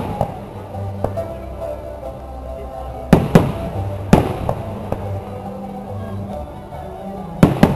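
Aerial fireworks shells bursting with sharp bangs: two about three seconds in, another a second later, and a close pair near the end. Music plays throughout.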